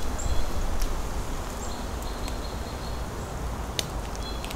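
Small birds giving short, high, thin calls several times over a steady low rumble, with a sharp click near the end.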